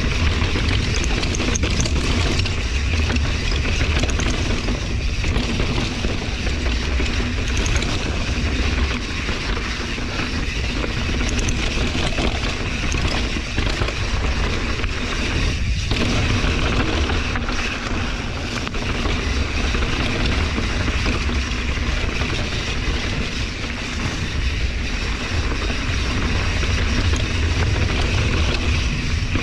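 Santa Cruz Hightower LT mountain bike riding downhill on a dirt trail: knobby tyres rolling over dirt and loose rock, with a steady rush of wind on the microphone.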